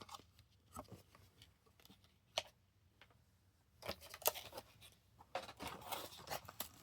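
Faint scattered clicks and rustling of packaged diecast cars being handled and shuffled, plastic blisters and card, with one sharper click about two and a half seconds in and busier rustling in the last few seconds.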